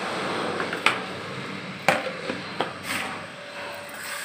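Four sharp knocks and clinks of kitchenware against crockery, the loudest two about a second apart and two lighter ones close behind, over a low background noise.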